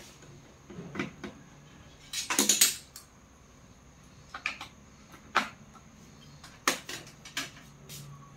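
Light clicks and clatter of small tools and parts being handled on a workbench, with a louder rattling cluster about two seconds in and single sharp clicks scattered after it.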